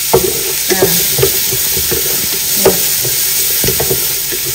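Wooden spatula stirring shallots, lemongrass and garlic frying in a large aluminium stockpot: a steady sizzle with irregular knocks and scrapes of the spatula against the pot.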